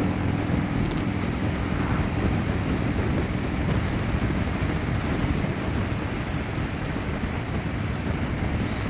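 Harley-Davidson Dyna Low Rider's Twin Cam 96 V-twin engine running steadily while riding, with wind rushing over the microphone.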